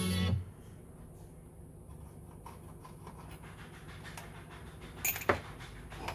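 Music cuts off, leaving a low steady hum with small clicks and taps of a screwdriver and fingers working inside an opened Sharp GF-777 boombox. A sharper click comes about five seconds in.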